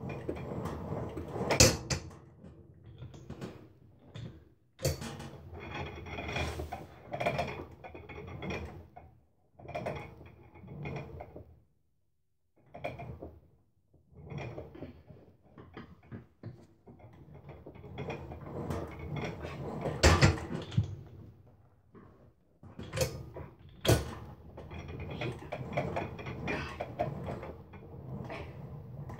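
Pec-deck arms of a home multi-gym worked through repeated reps: the machine's cable and pulleys rattle and clank with each stroke. There are a few sharp knocks along the way.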